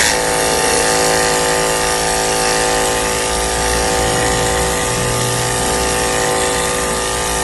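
Cordless 24-volt, 300-watt washer pump running at full output, its electric motor giving a steady whine over the hiss of a soap-bottle foam attachment spraying soapy water. It starts abruptly.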